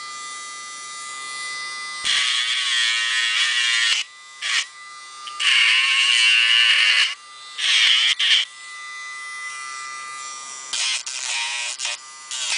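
Dremel rotary tool running with a steady high whine, its sanding drum grinding down a dog's nail in a series of louder, rougher bursts, each up to two seconds long, the first starting about two seconds in and a few short ones near the end.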